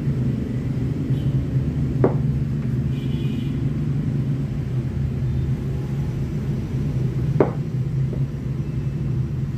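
Steady low background rumble, with two short light knocks, one about two seconds in and one about seven seconds in.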